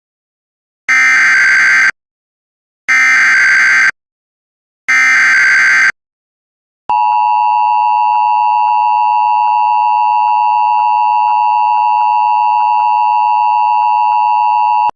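Emergency Alert System activation: three one-second bursts of the SAME header's warbling digital data tones, about a second apart, then the steady two-tone EAS attention signal held for about eight seconds. It announces a National Weather Service severe thunderstorm warning.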